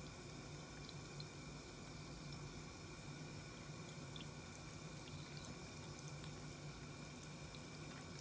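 Thin stream of water running from a bathroom sink faucet into the basin, a faint steady trickle with a few small drip-like ticks.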